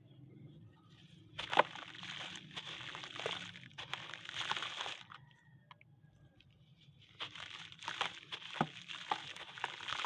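Red dirt being crumbled by hand into a tub of water: two stretches of crunching and splashing, starting about a second and a half in and again about seven seconds in, with sharp cracks within them.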